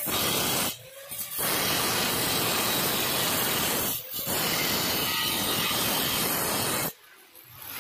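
Angle grinder with a thin cut-off disc cutting through stainless steel tube: loud, dense grinding noise in long stretches, with a short break about a second in and a brief dip near four seconds. The cutting stops about a second before the end.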